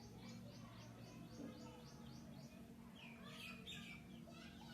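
Faint bird calls: a rapid run of about a dozen short, falling chirps, then a denser cluster of chirps about three seconds in, over a low steady hum.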